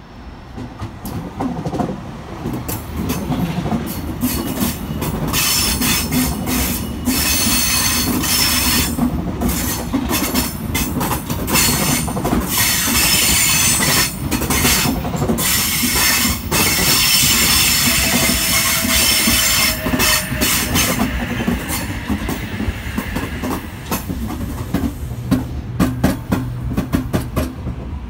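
Double-deck electric passenger train passing close by, its wheels screeching against the rails with a loud, high-pitched rail squeal over the rumble and clatter of the wheels. The noise builds as the train arrives, is loudest through the middle, and eases near the end.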